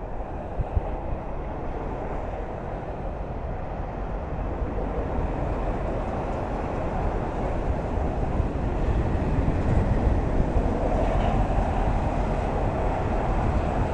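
Toll-road traffic noise: a steady low rumble of tyres and engines that grows gradually louder.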